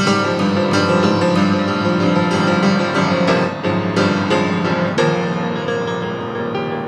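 Improvised instrumental music led by a piano-like keyboard playing many overlapping notes, with frequent fresh note attacks; the bright upper sound thins out after about five seconds.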